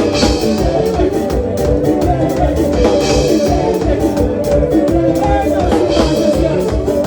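Live dance band playing upbeat music with a steady beat of drums and percussion, keyboard or brass lines and some singing.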